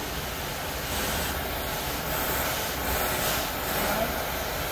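Oxy-acetylene cutting torch on a motorized track carriage, burning through thick steel plate with a steady rushing hiss that grows a little louder about a second in.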